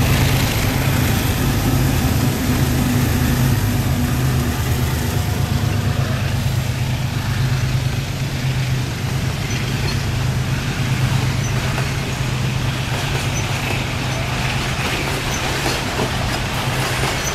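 Loaded freight train passing close by: a pair of GE U20C diesel-electric locomotives with a steady low engine drone, then loaded hopper wagons rolling past on the rails.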